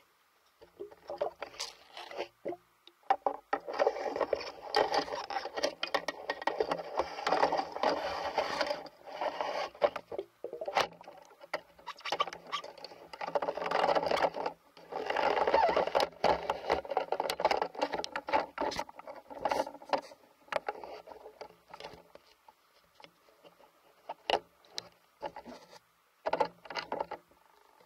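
Underwater noise at the camera as a spearfisher moves and handles a speargun: two long stretches of dense crackling and scraping, with scattered clicks between and after them.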